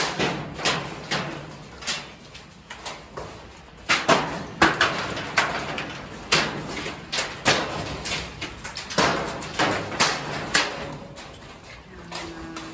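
Golf-ball-size hailstones striking hard surfaces in sporadic, irregularly spaced sharp impacts, about one or two a second, quite loud.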